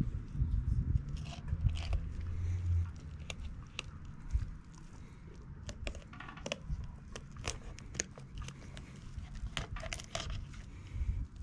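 Fillet knife cutting along an opaleye on a wooden cutting board, slicing through skin, scales and rib bones in many irregular sharp ticks and scrapes. A low rumble sits under the first three seconds.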